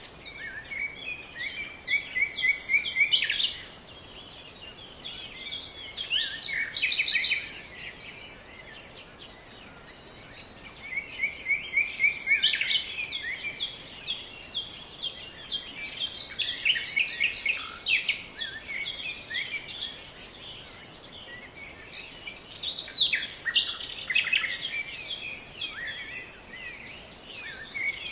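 Birds singing: phrases of quick high chirps and trills a few seconds long, with short quieter pauses between them.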